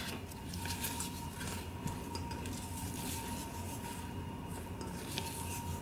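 Silicone spatula stirring mini marshmallows into thick melted chocolate in a stainless steel bowl, quiet, with a few faint clicks.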